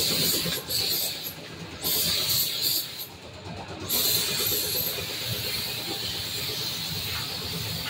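Compressed-air gravity-feed spray gun hissing as it sprays paint: two bursts with short pauses between them, then a longer steady spray from about four seconds in.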